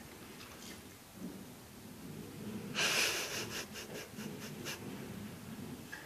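Large dog sniffing at close range: one sharp breath out about three seconds in, then a quick run of short sniffs, about six a second.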